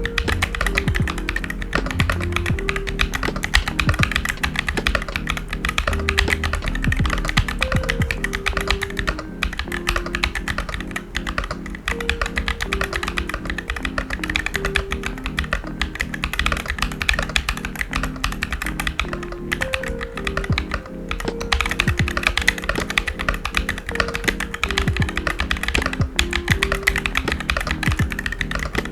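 Steady typing on a DK68 mechanical keyboard with unlubed KTT Blueberry switches and stock stabilizers: a dense run of key clacks, over background music.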